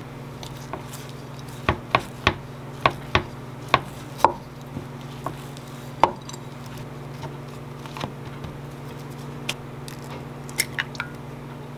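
A glass bottle is pressed and rolled over a slice of bread on a wooden cutting board, knocking sharply against the board about a dozen times at uneven intervals. Near the end comes a quick run of three or four higher clicks as an egg is handled against a glass cup. A steady low hum runs underneath.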